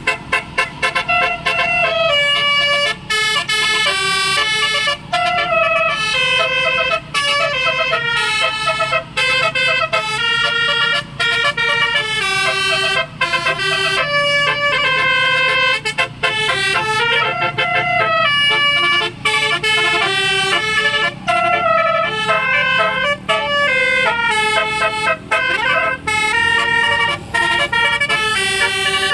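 Basuri telolet multi-tone electric horn playing a melody, stepping quickly from note to note with brief gaps between phrases.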